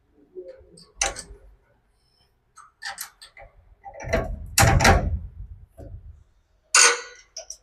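Hand tools and nut-and-bolt hardware clinking and knocking during the bolting of a crimped cable lug, a few separate clicks with one heavier knock midway.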